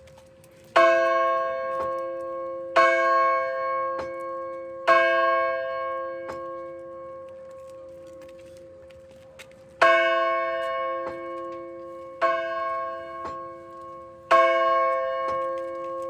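A church bell rung by hand, struck six times: three strokes about two seconds apart, a pause, then three more. Each stroke rings on and fades slowly into the next.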